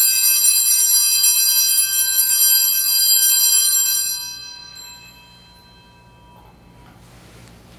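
A cluster of small brass altar (sanctus) bells rung continuously for about four seconds, then stopping and dying away over about a second. The ringing marks the elevation of the chalice after the consecration of the wine.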